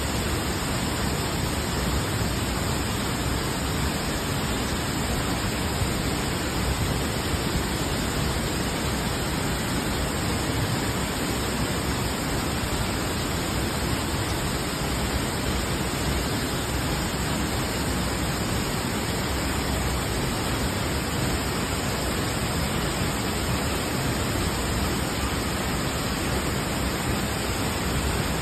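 Cedar Falls waterfall pouring into its plunge pool: a steady, even rush of falling water that does not change.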